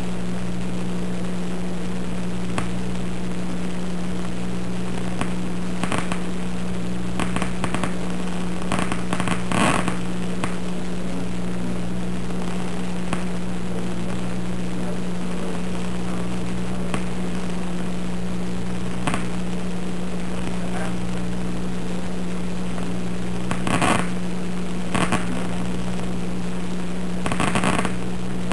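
A single visual-cortex simple cell's spikes played through an audio monitor: bursts of rapid crackling clicks over a steady electrical hum. The bursts come around six to ten seconds in and again near the end, when the light bar lies across the cell's receptive field; they are the cell firing in response to the bar.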